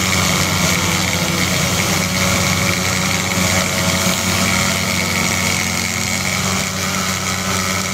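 Small single-cylinder motorcycle engine held at steady high revs while the bike lies on its side with its rear wheel spinning, a continuous even note.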